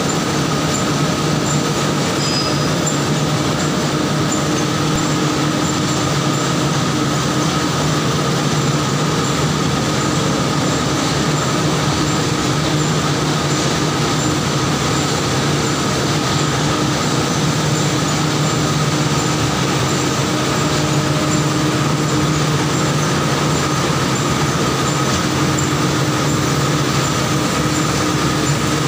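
Mustard oil plant machinery running steadily: a continuous loud mechanical din with a steady low hum that keeps on without a break.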